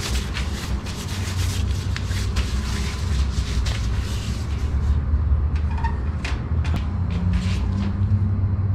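Disposable plastic gloves rustling as gloved hands rub together, then a few light clicks as small items and a glass vaccine vial are handled, over a steady low rumble.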